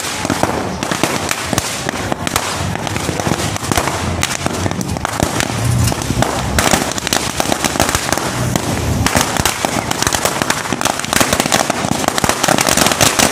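Firecrackers packed in a burning New Year's effigy going off in a rapid, unbroken crackle of bangs.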